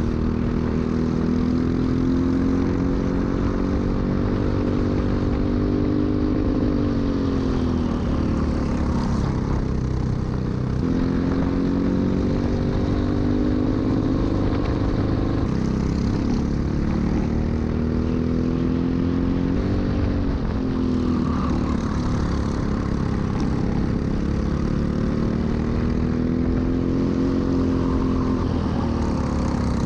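Onboard sound of a Briggs & Stratton LO206 single-cylinder four-stroke kart engine at racing speed. Its pitch climbs on each straight and drops as the kart slows for a corner, several times over.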